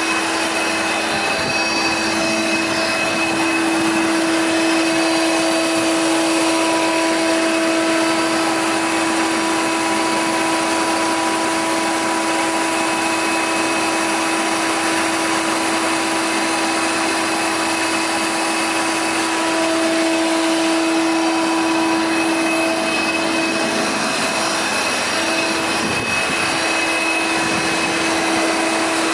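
Jaroma DSFA 40 thickness planer running steadily, a constant hum-whine over a rushing noise.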